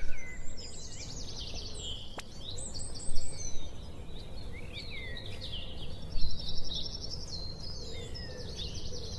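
Songbirds chirping and singing in short quick phrases that come every few seconds, over a steady low background noise.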